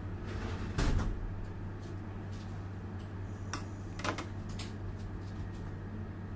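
A few light clicks and taps from a metal palette knife against the cake board and turntable, the loudest about a second in, over a steady low hum.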